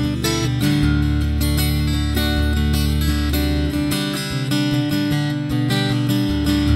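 Background music led by strummed acoustic guitar, with sustained low notes underneath.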